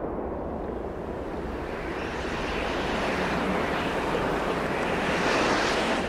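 A rushing noise with no clear pitch swells and grows brighter over several seconds. It peaks near the end, then falls back.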